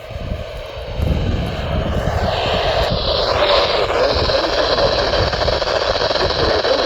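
Radio receiver hiss, likely a Yaesu FT-991 transceiver with its squelch open on a weather-radio channel. The hiss jumps louder about a second in and holds steady. A whistling tone dips and climbs back up in pitch partway through.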